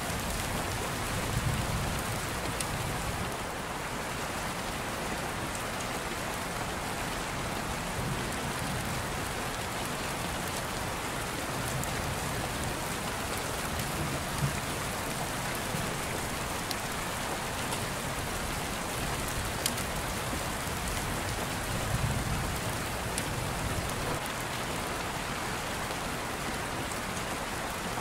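Steady rain: an even hiss with scattered faint drop ticks and a couple of soft low bumps.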